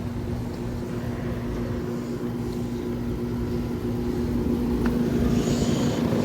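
Rusty 5-ton Trane XR14 air-conditioner condensing unit running: a steady hum from the compressor with the rush of the condenser fan.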